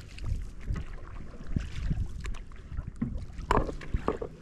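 Wind rumbling on the microphone aboard a fishing kayak, with scattered light knocks against the boat and one louder knock about three and a half seconds in.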